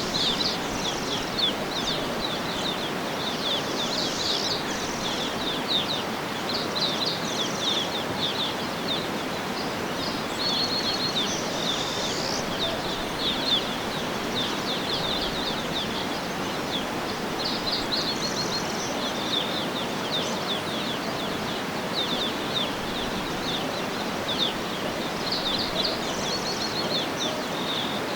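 Small birds chirping in quick, repeated calls throughout, over a steady background hiss of outdoor ambience.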